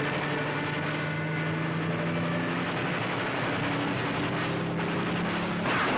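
Propeller aircraft engines droning overhead, with slow gliding shifts in pitch as the planes pass. A louder burst of noise comes in near the end.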